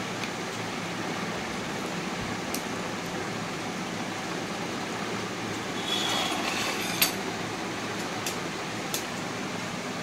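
Steady fan-like hiss of the room, with a few small sharp metallic clicks of a metal spatula and soldering iron tip against a phone circuit board while the charging socket is worked loose. The loudest click comes about seven seconds in, just after a brief rustling scrape.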